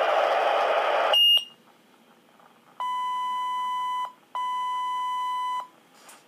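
Motorola Minitor V fire pager: static hiss from the open radio channel cuts off about a second in with a short high chirp. Then come two long, steady, identical beeps of about a second and a half each, with a short gap between them.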